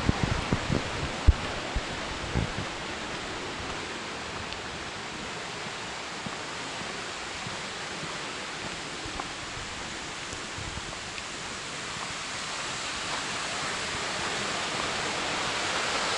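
Steady rushing hiss of outdoor noise that grows a little louder near the end, with a few soft footfalls and knocks in the first couple of seconds as the hiker walks the dirt trail.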